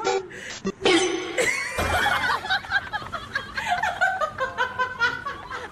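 A person laughing in short repeated bursts.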